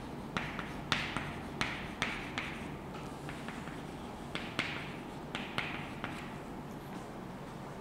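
Chalk writing on a blackboard: a string of sharp taps as the chalk meets the board, several followed by short scratchy strokes. The strokes come thickest in the first few seconds and thin out later.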